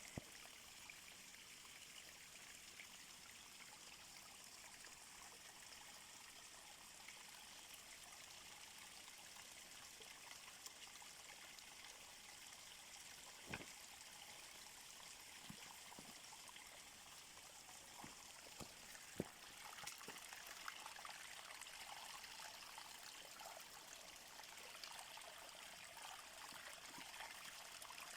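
Faint, steady trickling of running water. A few light clicks come through in the middle, and the flow gets a little louder toward the end.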